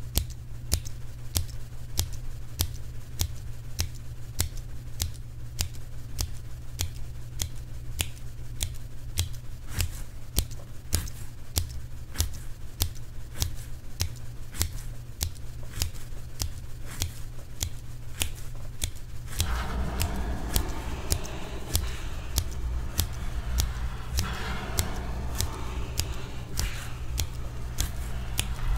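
A steady run of sharp clicks, about three a second, over a low hum. A scratchy rustling joins about two-thirds of the way in.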